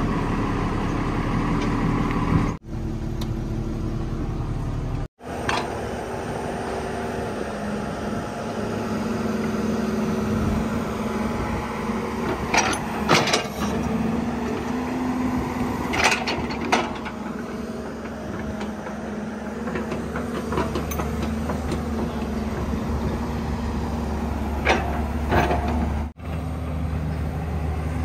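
JCB 205 tracked excavator's diesel engine running steadily while the machine digs soil, with a few short sharp metallic sounds from the bucket and boom linkage near the middle and again near the end.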